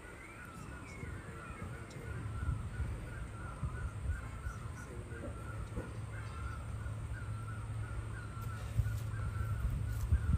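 A bird calling over and over in a steady run of short, wavering notes, over a low rumble.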